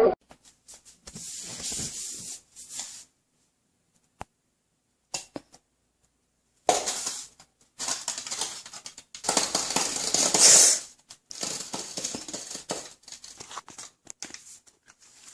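Intermittent rustling and scraping in short bursts with silent gaps between, from a plastic cup and a sheet of paper handled against a wall, and a single sharp click about four seconds in.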